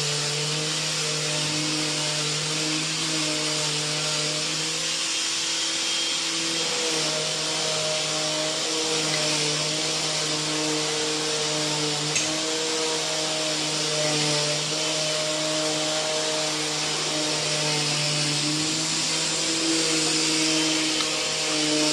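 A motor-driven machine running continuously, a steady hum over a high hiss. Its pitch wavers slightly and dips briefly about five seconds in.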